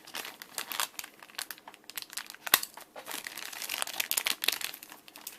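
Plastic packaging being opened by hand, with irregular crinkling and tearing and one sharp snap about two and a half seconds in.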